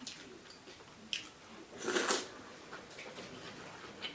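Close-miked eating sounds: faint mouth clicks and chewing, with a short, louder rush of noise about two seconds in.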